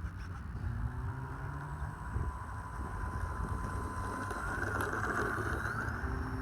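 Wind buffeting the microphone, with the thin whine of the E-flite T-28 Trojan's brushless electric motor and propeller in flight, rising in pitch near the end as the throttle comes up.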